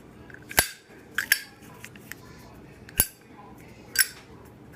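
Zippo lighter's metal lid being flicked open and snapped shut, a series of sharp metallic clicks, two of them in quick succession about a second in.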